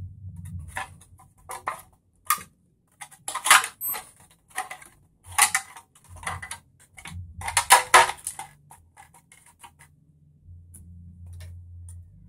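Clear plastic Tamiya F104 RC car body shell being flexed and pressed onto an RC chassis: a run of irregular sharp clicks and crackles, busiest between about three and eight seconds in.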